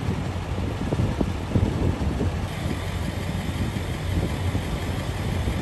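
Wind buffeting the microphone in irregular gusts over the steady low hum of idling engines.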